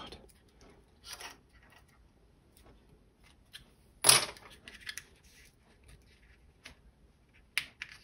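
A few sparse metallic clicks and scrapes from a seat belt retractor's coiled steel return spring being worked and hooked by hand, the sharpest click about four seconds in.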